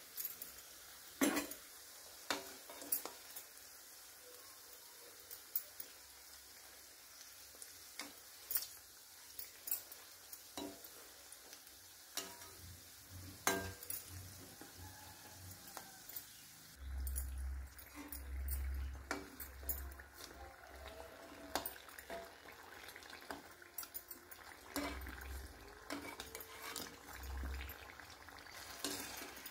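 Karanji dumplings deep-frying in hot oil in a metal kadai: a steady sizzle with many sharp crackles and pops. In the second half a slotted metal spoon stirs and turns them, adding scrapes and dull knocks against the pan.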